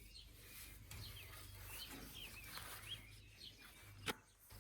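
Songbird chirping faintly and repeatedly over quiet outdoor background noise, with one sharp click near the end.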